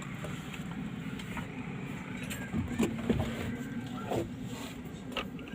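A steady low mechanical hum, with a few light clicks and knocks.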